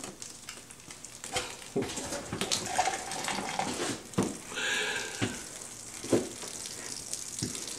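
Beer being wrung out of a head of hair into an empty beer container: small splashes and drips of liquid among scattered taps and clicks of handling.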